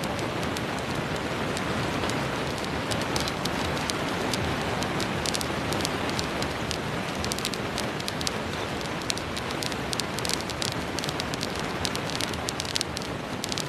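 Flaxseeds dry-roasting in a kadhai, stirred with a metal spatula: a steady rain-like hiss of seeds sliding and rattling in the pan, with sharp crackling pops that begin a few seconds in and come thicker towards the end as the seeds roast.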